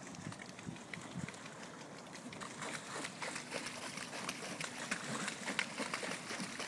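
Water splashing and dripping around a kayak as it is paddled: a dense patter of small splashes and drips that gets busier and louder about two and a half seconds in.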